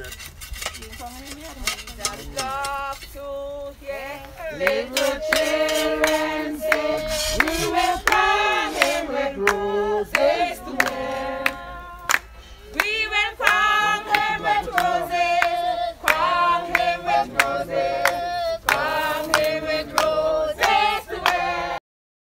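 A group of voices singing together, both women and men, with hand-clapping along to the song. The sound cuts out suddenly near the end.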